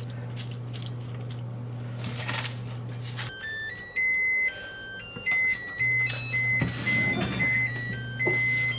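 A short electronic melody of pure, beep-like tones stepping from pitch to pitch, starting a little over three seconds in. Under it runs a steady low hum.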